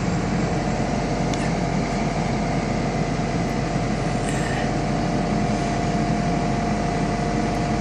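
John Deere 310K EP backhoe's diesel engine running steadily at a slightly raised idle, warming up after a cold start, with a thin steady whine over the engine note.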